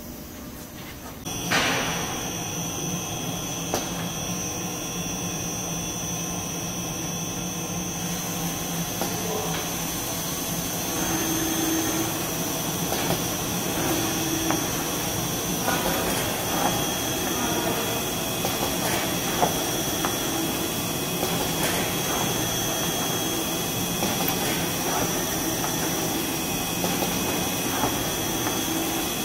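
Band-saw tissue-roll cutting machine running: a steady mechanical whir with a high whine, coming in abruptly about a second and a half in, with occasional light clicks.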